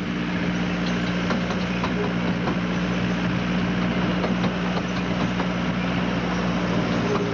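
Miniature railway train running along its track, heard from an open passenger carriage: a steady engine hum with scattered faint clicks from the wheels and track.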